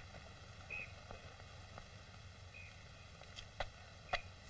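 Steady hiss and low hum of an old optical film soundtrack, with a few sharp clicks and pops near the end.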